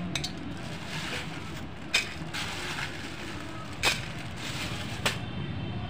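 A few sharp, isolated clicks as the aluminium pressure cooker holding dry popcorn kernels in oil is handled, over a steady low hum. The oil is not yet hot, so there is no sizzling or popping.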